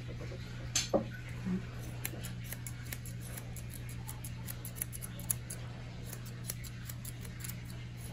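Grooming shears snipping a dog's muzzle hair at the corner of the lip: a run of quick, light, sharp snips, with one louder click about a second in, over a steady low hum.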